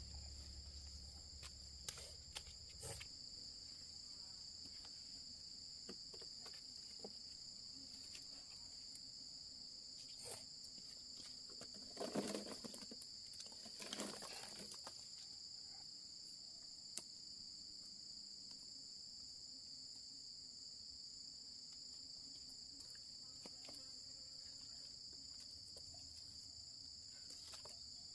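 A steady high-pitched insect chorus drones throughout. About twelve seconds in, a short cluster of rustles and light knocks comes from dried corn cobs being tipped out of a small woven basket onto a fire pit.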